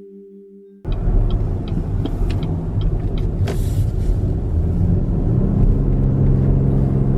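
A moving car's engine and road noise rumbling, with the engine note growing stronger and steadier in the last couple of seconds. Fading music gives way to it about a second in.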